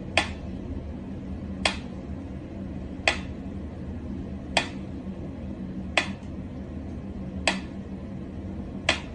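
A sharp, brief tap or click repeating evenly about every second and a half, seven times, over a low steady hum.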